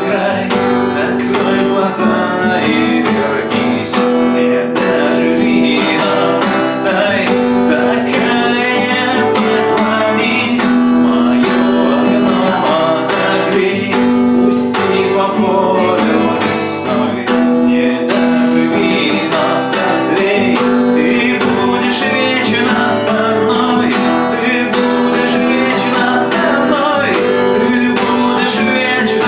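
Acoustic guitar strummed as song accompaniment, with a man singing over it.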